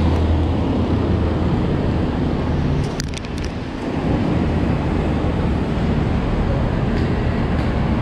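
Steady road traffic rumble from nearby streets and the bridge, with a short cluster of clicks about three seconds in.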